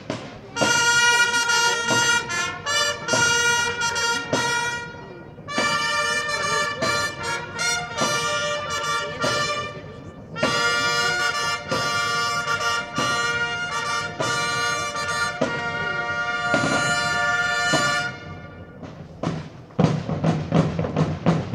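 Clarions (long medieval trumpets) play held fanfare phrases over drums: three long phrases with short breaks between them. Near the end the trumpets stop and the drums carry on alone in a steady rhythm.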